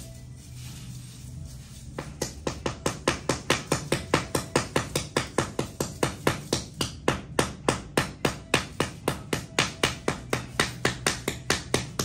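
Hammer striking beaded fabric laid on paper over a floor, rapid even blows at about four a second, crushing the beads along the fabric's edges so it can be sewn. The blows pause at the start and resume about two seconds in.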